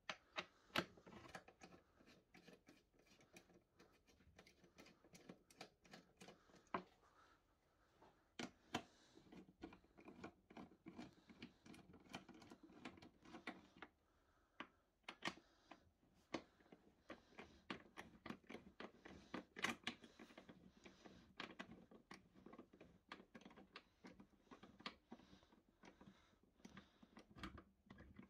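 Scattered small clicks and taps of a hand socket driver and bolts against the hard plastic of a scooter's under-seat storage bin as its bolts are worked, irregular and a few a second at times.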